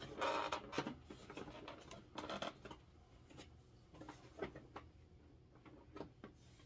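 Faint rubbing and light clicks of hands working over the plastic hull of a large Hasbro Razor Crest toy spaceship, feeling for panels that pull off. A few brief scraping rustles in the first couple of seconds, then scattered small clicks.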